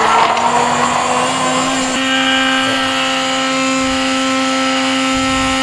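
GLEN electric hand blender running steadily, its motor giving a constant whine as the blade whips raw eggs to a froth in a glass bowl.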